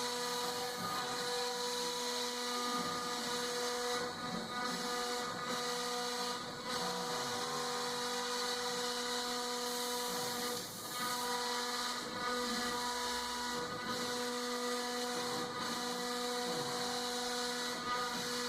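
Tatatronic TT1210 Rhino CNC router milling wood: a steady spindle whine over the hiss of the cut, dipping briefly a few times as the tool moves.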